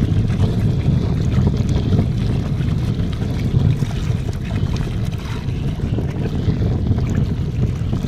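Wind buffeting the microphone outdoors: a loud, steady low rumble of noise with no clear tone in it.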